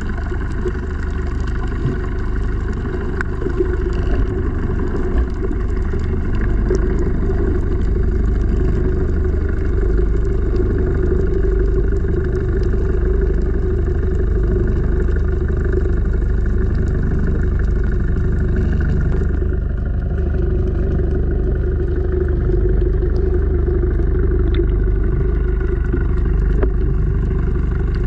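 Steady, muffled rumble heard under water, with faint steady hums running through it.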